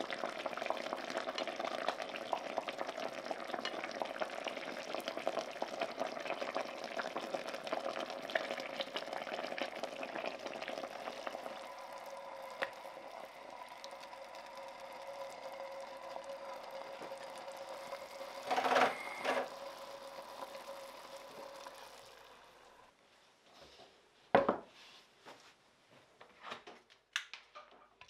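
Broth simmering and bubbling in an enamelled cast-iron pan, a steady crackle that fades out a little over three quarters of the way through. A couple of metal clinks come shortly before it fades, and a single sharp knock follows near the end.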